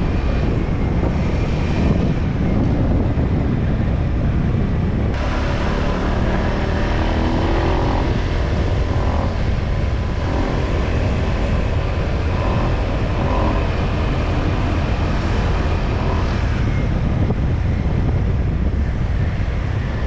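Steady rush of wind and engine drone from a Honda PCX125 motor scooter being ridden, with an abrupt change in the sound about five seconds in.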